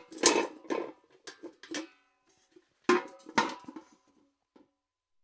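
Metal bucket clanking: a quick run of knocks with a short metallic ring, then after a brief pause a second run of clanks about three seconds in, ending with one faint tap.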